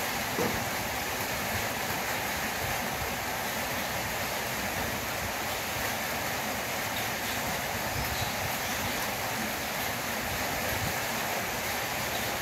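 Steady rain, an even dense hiss with no pauses.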